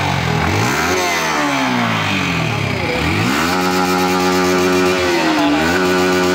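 Yamaha R15 M's 155 cc single-cylinder engine revved through its stock exhaust: one quick rev that rises and falls, then a second rev about three seconds in, held high for around two seconds with a short dip near the end.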